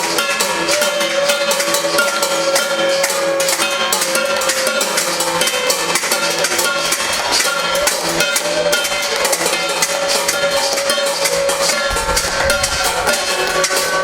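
Din of many people clapping, beating metal plates and ringing bells, a dense run of irregular sharp claps and clangs with short ringing tones. A long steady tone is held through it.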